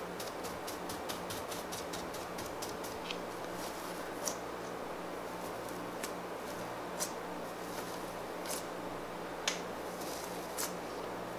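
Fingertips pressing into and lifting off green clear slime covered with a sheet of gold leaf, making small sticky clicks and pops: a quick run of little clicks for the first few seconds, then single crisp pops every second or two. A faint steady low hum runs underneath.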